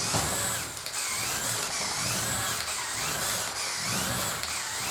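Electric drive motors and plastic gearing of a Mould King 17019 Fastrac 4000 brick-built RC tractor running at speed. It makes a steady mechanical whir with a whine that rises and falls again and again as the tractor is driven back and forth.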